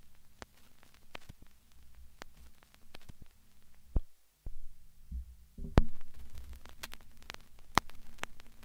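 Low steady hum with irregular crackling clicks like static. The hum drops out briefly a little after four seconds, and a few low thuds come about five to six seconds in.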